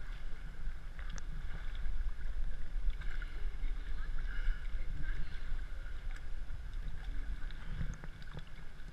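Water splashing and sloshing as people swim through a flooded cave, with scattered small splashes and drips over a steady low rumble.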